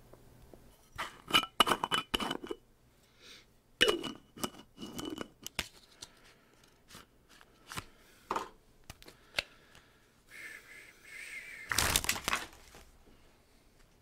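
Irregular bursts of crackling and crinkling, like material being crumpled or torn while it is handled, with a few separate clicks and a louder rustling burst near the end.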